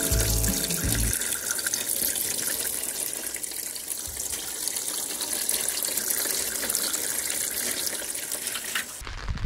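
Water running in a steady rush that cuts off sharply near the end, with background music ending about a second in.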